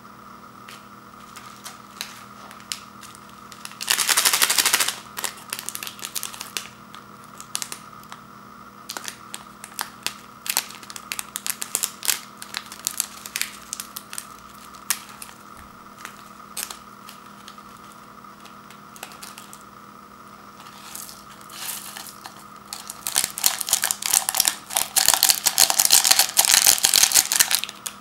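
Thin plastic seasoning packet of dried vegetables crinkling as it is handled and torn open, with scattered clicks and crackles. Near the end a longer, denser run of crinkling and rustling as the dried vegetable flakes are shaken out of the packet onto the dry noodles in a paper cup. A faint steady hum runs underneath.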